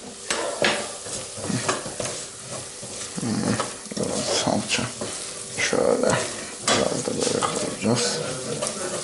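A spoon stirs and scrapes chopped onion and carrot as they sizzle in oil in a saucepan, with irregular knocks and scrapes against the pan. This is the sautéed base of a lentil soup, with flour stirred in.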